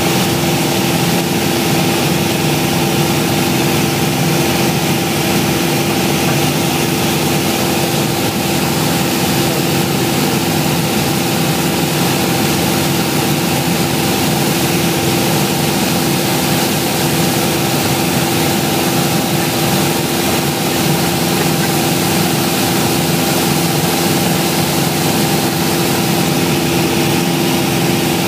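Piper Warrior's four-cylinder Lycoming engine and propeller droning steadily in flight, heard inside the cabin with rushing air noise, the pitch and level unchanging.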